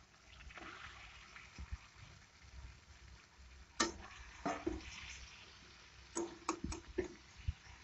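Fried potato and raw banana pieces tipped into a wok of cooked spice paste over a faint sizzle, with clicks and knocks of the pieces and a ladle against the wok: a sharp knock about four seconds in and a quick run of four clicks a little after six seconds in.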